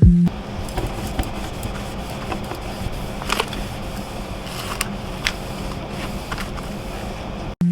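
Live sound of hands-on kitchen cleaning: a steady rushing noise with scattered light clicks and knocks from things being handled, a few sharper ones in the middle.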